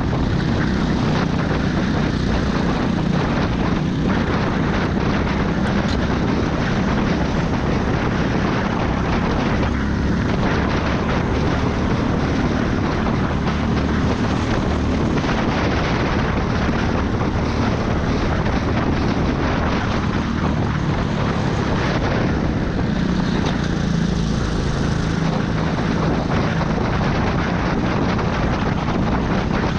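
RiMO racing kart's engine running hard through a lap, with the drone of karts around it and wind over the microphone.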